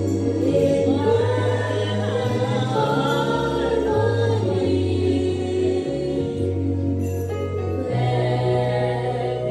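A group of voices singing a song over an accompaniment, with held low bass notes that change every second or so.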